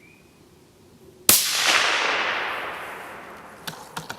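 A single shot from a suppressed 6.5x55 Carl Gustaf 1900 rifle, a sharp report about a second in, followed by a long echo fading over two seconds or more. A couple of light clicks come near the end.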